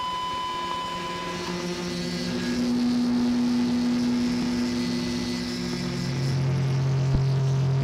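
Electric-guitar noise drone, heard from inside a toilet stall: several steady held tones layered over one another, shifting slowly, with a deeper tone coming in about six seconds in and a sharp click near the end.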